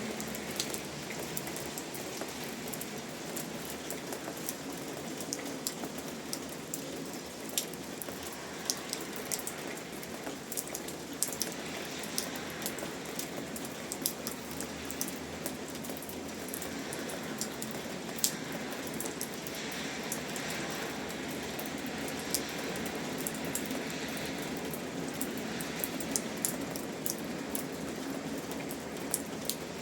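Steady rain falling, with many separate drops ticking sharply on a hard surface.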